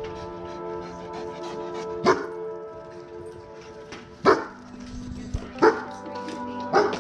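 Lycan Shepherd dogs barking: four sharp single barks, a second or two apart, over steady background music.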